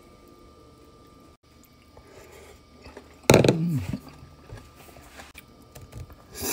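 A man's short wordless vocal sound, falling in pitch, about halfway through, then small eating sounds and a bite into a dumpling near the end.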